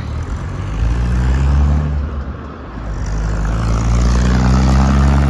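Road traffic: the deep drone of a passing vehicle's engine. It dips about two seconds in, then grows louder and rises slowly in pitch as an engine accelerates.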